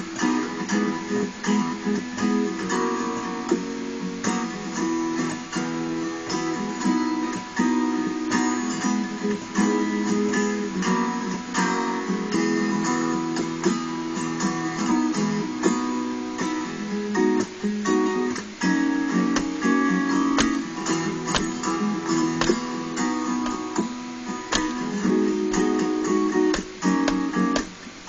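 Acoustic guitar strummed in a steady rhythm, playing the chords of an instrumental break.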